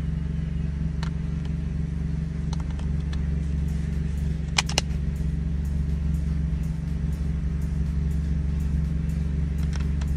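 Car engine idling, heard inside the cabin as a steady low hum. A few small plastic clicks and taps come from a dashcam being handled, the loudest a quick pair about four and a half seconds in.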